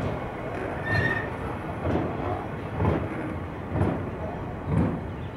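A freight train of loaded double-deck car-transporter wagons rolling past at speed, a steady rail rumble with a regular thud of the wheels about once a second. A brief high wheel squeal about a second in.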